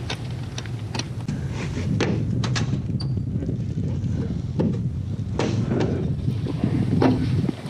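Scattered knocks and clunks from a wooden door frame being handled and a spirit level set against it, over a steady low rumble.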